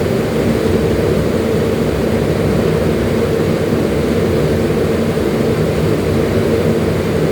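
Extractor-hood fan motor running steadily: a loud, even whirring drone with a steady hum in it.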